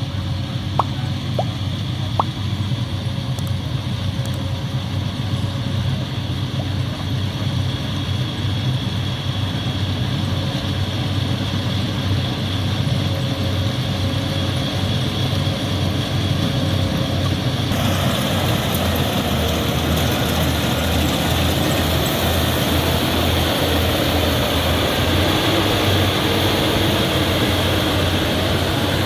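Yanmar YH850 rice combine harvester running steadily: a low diesel engine drone with a hiss of noise over it that grows brighter and louder about two-thirds of the way through. There are a couple of sharp clicks in the first few seconds.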